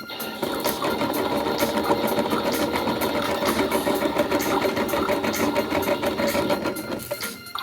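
Small electric motor of a toy washing machine whirring steadily as it runs its wash, dropping away near the end.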